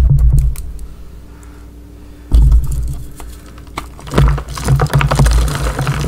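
Pressed gym chalk reforms and loose chalk powder being pressed and crushed by hand. Soft low thuds come at the start and again about two seconds in, then dense crunchy crumbling and crackling from about four seconds on.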